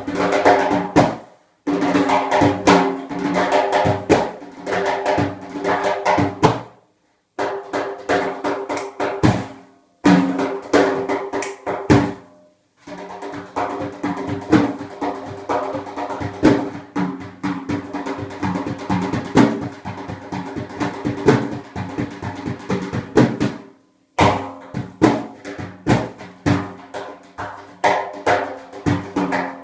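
Daf, the Persian frame drum with metal rings inside its rim, played solo in fast rolls and strikes, the rings jingling. The playing stops dead for a moment several times.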